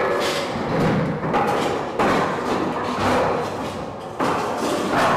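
An aircraft carrier's anchor chain running over the deck gear and down the chain pipe during anchoring. Heavy metal clanks and thuds come about once a second over a continuous clatter.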